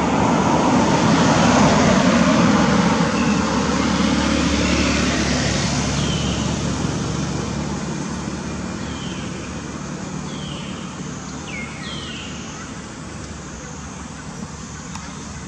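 Road traffic noise: a vehicle passing, swelling in the first few seconds and then slowly fading away. A few short, high, falling chirps sound through the middle of the stretch.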